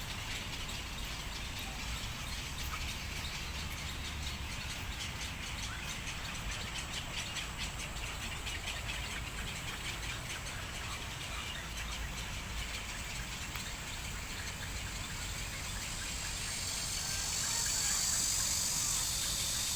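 Outdoor summer ambience of insects calling in fast pulses, with bird calls mixed in. A high insect drone swells near the end, over a low rumble.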